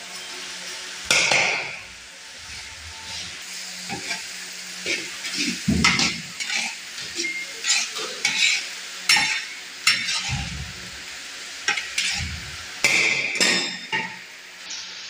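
Minced beef frying and sizzling in a black iron wok, stirred with a long metal spatula that scrapes and knocks against the pan at irregular intervals, loudest about a second in and again near the end.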